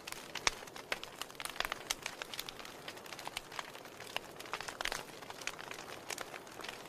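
Wood fire crackling in a fireplace: frequent, irregular sharp pops and snaps from the burning logs and embers over a soft hiss.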